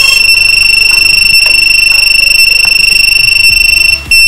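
Quadcopter battery-warning buzzer, wired to the flight controller's buzzer pins, sounding one continuous high-pitched beep that breaks off briefly about four seconds in.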